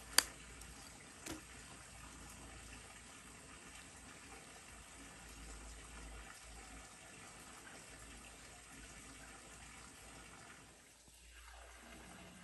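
Steady faint rush of flowing stream water, with two sharp clicks at the start and a softer click about a second later.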